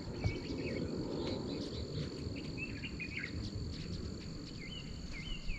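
Outdoor dawn ambience: a steady high-pitched insect drone, like crickets, with several short bird chirps, a few more near the end, over a low rumble.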